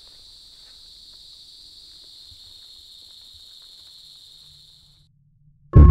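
A steady, high-pitched chorus of insects with faint footsteps on a path. The chorus cuts off about five seconds in, and after a brief silence a loud, sudden music hit starts sustained low tones near the end.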